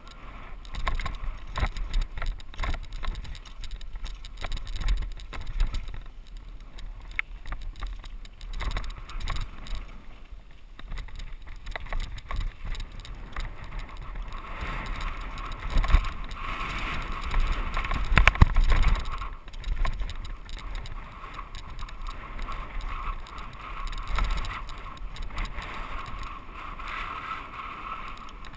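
Mountain bike descending a packed-dirt trail, heard from a GoPro on the bike or rider: tyre noise and rattling, with clicks and knocks from the bike over bumps, loudest about two-thirds of the way through.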